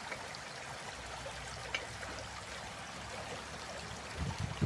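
Steady rush of flowing water, with a few low thumps near the end.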